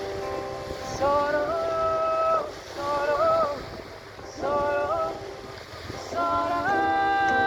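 Background music: a slow song with a singing voice holding long notes in phrases, stepping between pitches.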